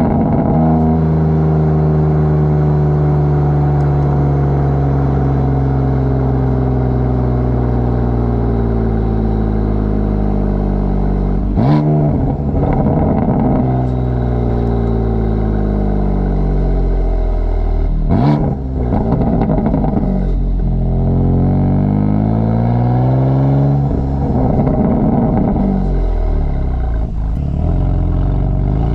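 BMW F82 M4's twin-turbo inline-six exhaust, driving, its pitch sinking slowly as the car coasts and then rising and falling with acceleration and slowing. Two sharp exhaust cracks come about twelve and eighteen seconds in.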